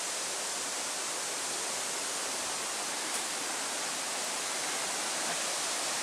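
A steady, even hiss with no distinct events, and one faint tick about three seconds in.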